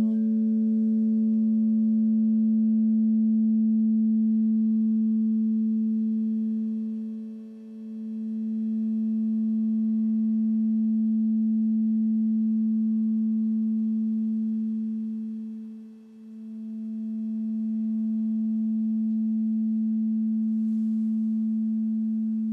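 Frosted crystal singing bowl tuned to A, left to ring on after being struck: one long, pure, low tone with faint higher overtones, slowly swelling and fading, dipping twice.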